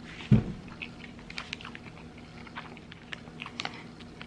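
Close-up mouth sounds of a person chewing food, many small wet clicks and smacks. About a third of a second in comes one short, low throaty sound, the loudest thing heard.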